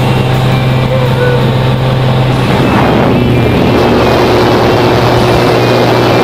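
Propeller engine of a small jump plane droning steadily, with wind rushing in through the open door. The rushing noise grows fuller about two and a half seconds in.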